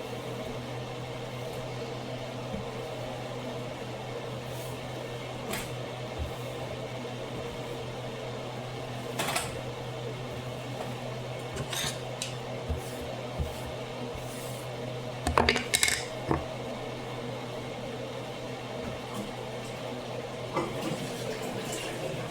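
Kitchen cooking sounds: a steady low appliance hum, with a few scattered clinks and clatters of pots, dishes and utensils, the loudest cluster a little past the middle.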